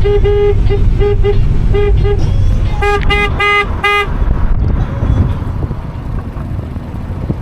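A vehicle horn honked in a quick series of about a dozen short toots on one pitch over about four seconds, the last few coming faster and louder, over a steady low rumble.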